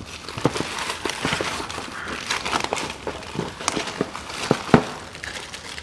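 Plastic bag crinkling as a new automatic-transmission filter in its packaging is handled, irregular crackles with a louder one shortly before the end.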